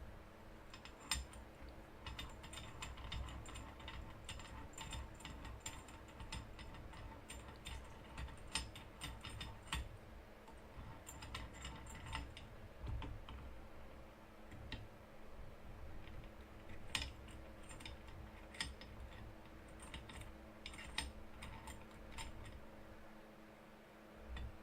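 Faint, irregular small clicks and rattles of hard parts being handled, in two clusters with a pause in between, over a low steady hum.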